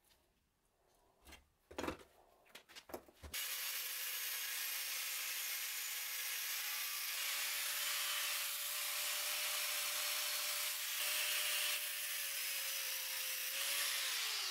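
A few sharp metal clicks and a snap as a steel pin rod is broken off in a hand cutting jig. After about three seconds comes a loud, steady hiss with a faint steady whine, which cuts off suddenly at the end.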